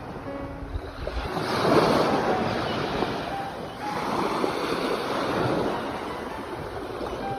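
Sea waves washing in as surf, swelling about two seconds in and again at about four seconds.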